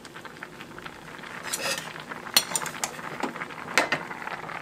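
Metal ladle stirring a boiling stew in an earthenware ttukbaegi pot, with a few scattered sharp clinks against the pot over a soft bubbling hiss.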